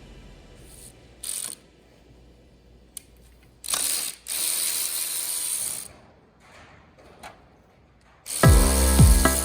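Ratchet wrench clicking in short runs, one lasting about a second and a half, as bolts are worked on an automatic transmission during teardown. Music with a heavy beat comes in near the end.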